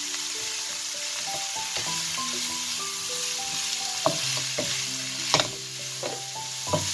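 Julienned vegetables sizzling in an oiled nonstick frying pan over low heat, a wooden spatula stirring them and knocking against the pan three times in the second half.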